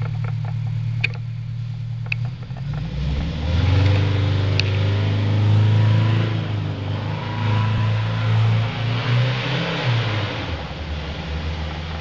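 Detroit Diesel 8V71 two-stroke V8 diesel of a 1979 Ward LaFrance ladder truck running steadily, then accelerating hard about three seconds in. Its pitch rises and it gets louder as the truck pulls away, then it eases off and drops near ten seconds.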